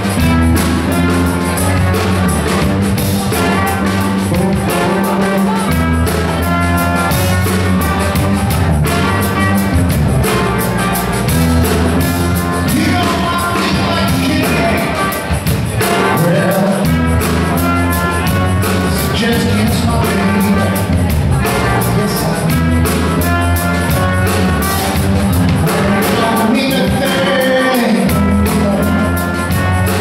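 Live funk band playing an instrumental passage, with a trumpet lead over drum kit, bass, electric guitar, keyboards and percussion, at a steady groove.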